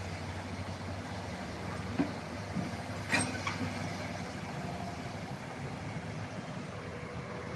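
Excavator's diesel engine running steadily, with a sharp knock about two seconds in and a louder clank about three seconds in.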